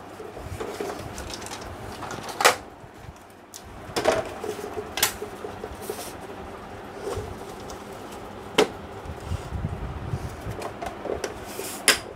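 Sheet-metal panel of an HP LaserJet P1020 Plus printer being handled and pressed into place on its metal frame. About five sharp clicks and knocks, the strongest about two and a half seconds in and near the end, over faint rustling and scraping.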